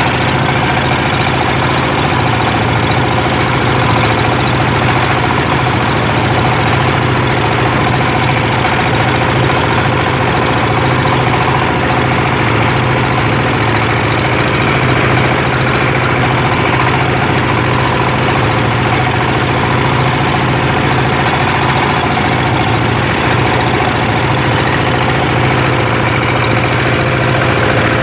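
Wooden river boat's engine running steadily underway: a constant low drone that holds unchanged throughout.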